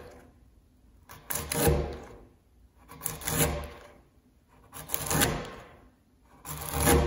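A long timber-framing chisel is pushed by hand down the walls of a mortise, shaving wood off the sides. There are four paring strokes about one and a half to two seconds apart. Each builds to a loud scraping crunch as the edge slices through the wood.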